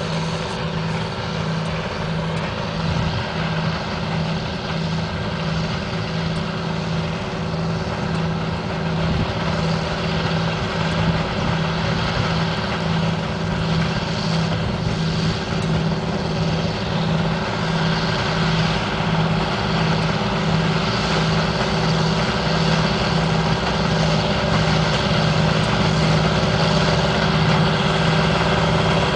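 Heavy beet-harvest machinery running steadily: a continuous engine drone with a low hum that pulses on and off a little more than once a second.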